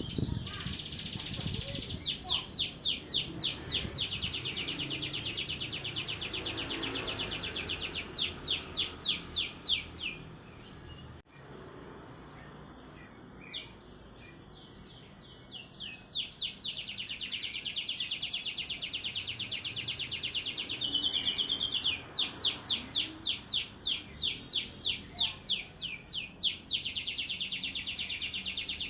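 Domestic canary singing a fast, tightly packed song of rapid trills and quickly repeated notes. It breaks off for about five seconds near the middle, then starts again.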